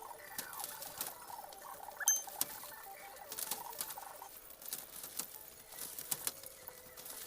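Young Joper chickens scrabbling about in their shipping box, with many quick taps and scratches of claws on cardboard and a few short peeps.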